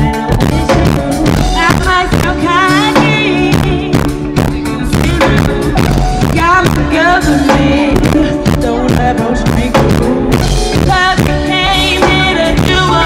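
A female vocalist singing live into a handheld microphone over a live band, with a drum kit keeping the beat. Her voice wavers in long held notes near the end.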